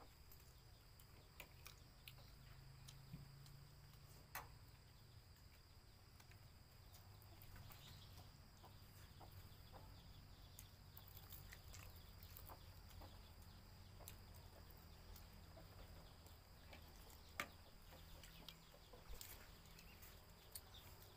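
Near silence, with occasional faint clicks and taps of spoons and fingers on dishes as people eat.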